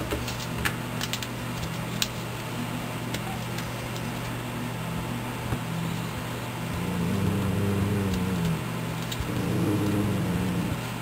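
Two dogs tugging a stuffed animal through a plastic doggy door, with a few sharp clicks in the first two seconds, then two spells of low, wavering growling from about seven and nine seconds in. A steady electrical hum runs underneath.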